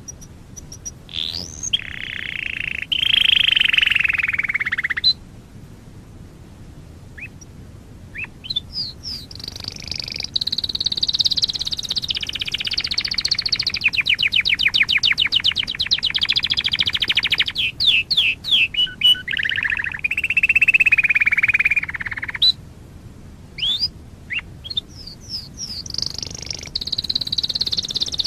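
Domestic canary singing: phrases of sweeping whistled notes and rolling trills, including a long run of rapidly repeated notes midway. There are two brief pauses, one a few seconds in and one about three quarters of the way through.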